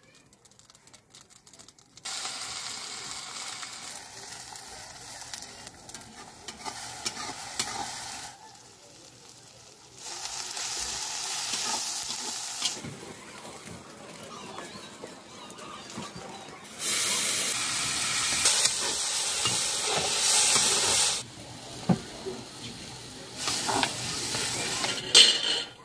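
Small fish frying in hot oil in an iron wok, sizzling, with a spatula stirring them. The sizzle starts suddenly about two seconds in and swells loud several times.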